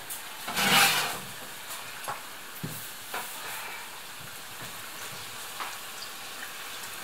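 Cottage-cheese dough rings deep-frying in hot oil, a steady sizzle with a much louder burst of sizzling about a second in. A few light clicks come later.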